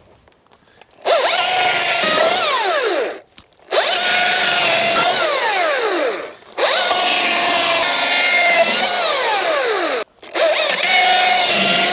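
Chainsaw cutting into wooden framing in four runs, each ending with a falling pitch as the chain winds down, with short quiet gaps between runs.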